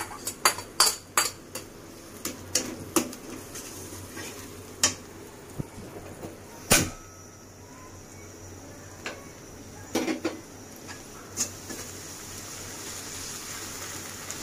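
Metal spatula and utensils clinking and knocking against a karahi. There is a quick run of taps in the first few seconds, then a few single knocks, the loudest about seven seconds in. Under them is a faint steady sizzle of pointed gourd paste frying in mustard oil.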